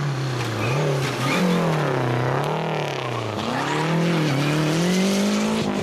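Lancia Delta Integrale rally car's turbocharged four-cylinder engine working through a corner at stage speed, its revs rising and falling again and again with braking, gear changes and acceleration. The pitch dips low about three seconds in, then climbs and holds higher near the end.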